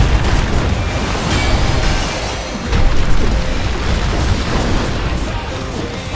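Action music under dense dubbed fight sound effects: booms and crashing impacts, the loudest hit about three seconds in.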